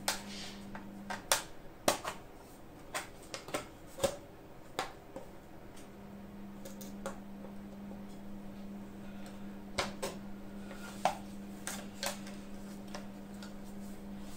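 Irregular light clicks and taps of hands fitting a laptop's bottom cover and its screws, small metal and plastic parts knocking and snapping, with a steady low hum underneath that drops out from about one second in until about six seconds in.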